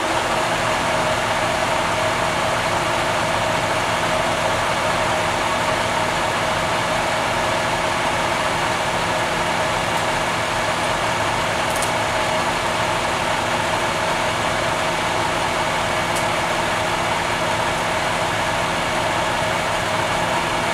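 Aerial bucket truck's engine running steadily to drive the hydraulics that raise the boom. A steady whine sits over the engine noise.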